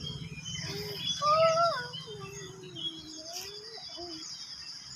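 Birds chirping in the early morning, many short calls over a steady high insect trill, with one louder call of bending pitch about a second in.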